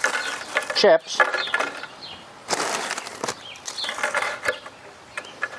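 Crinkling of a plastic Doritos chip bag handled and shaken as chips are tipped out onto a platter, in several short crackly spells.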